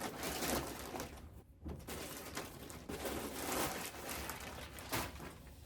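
Rustling and crinkling of shirts and packaging being handled, irregular and uneven, with a few sharper crackles.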